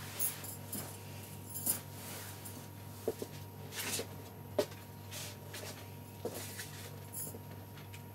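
Cotton sheeting rustling as it is handled and folded, with scattered small clicks and knocks at irregular moments over a steady low electrical hum.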